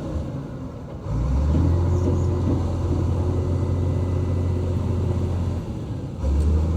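Diesel engine of a heavy earthmoving machine running steadily with a deep drone. It eases off briefly at the start and again near the end, then picks back up each time.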